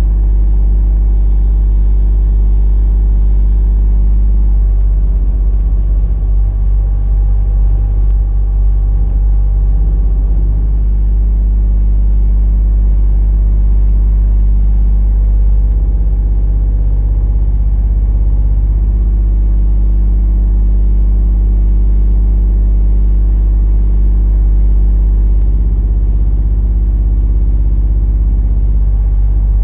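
Mini excavator engine running steadily and loud. For several seconds near the start its note wavers and shifts, then it settles back to a steady run.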